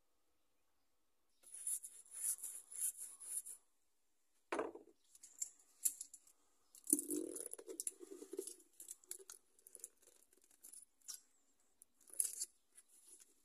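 Irregular rustling and scraping from hands handling craft materials on a workbench, with a single knock about four and a half seconds in. Near the end comes a short burst of noise as a plastic bottle of all-purpose glue is squeezed onto the board.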